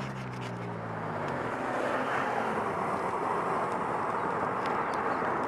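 Steady wind and road rush on the microphone of a moving road bike. A low engine hum from a passing motor vehicle fades out a little over a second in.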